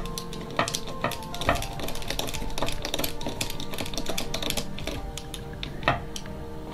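Small precision screwdriver turning a flange screw into a nut on a 3D-printed plastic sensor part: a run of irregular light clicks and ticks, with a few sharper ones.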